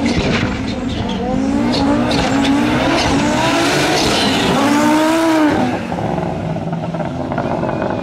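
Audi Sport quattro S1 rally car's turbocharged five-cylinder engine revving hard while sliding on a dirt track. Its pitch climbs and drops with throttle and gear changes, peaks about five seconds in, then falls away. There are a few sharp cracks early on and the hiss of thrown dirt.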